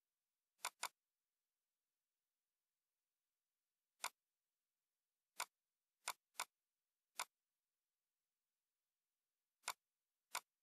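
Computer mouse clicks: nine short, sharp clicks at irregular intervals, a quick pair near the start and the rest spread out, over dead silence.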